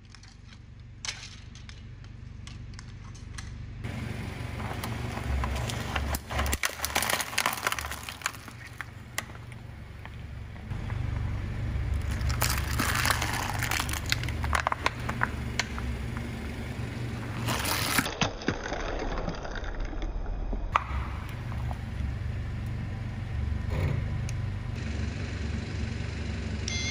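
A car tire slowly rolling onto brittle objects and crushing them: clusters of cracking and crunching over the low, steady run of the car's engine. At the start there are a few faint clicks of broken plastic pieces being handled.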